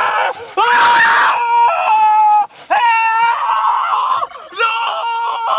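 A young man screaming: about four long, high-pitched screams in a row, each held steady, with short breaks between them.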